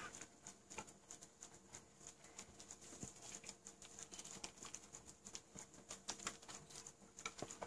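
Faint, irregular clicking and tapping of wire whisks against a glass baking dish as flour and water are stirred into a paste.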